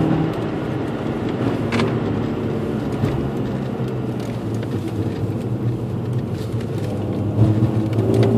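Car engine heard from inside the cabin while driven hard through a cone course: the engine note drops at the start as the driver eases off, holds steady, and climbs again near the end as the car accelerates.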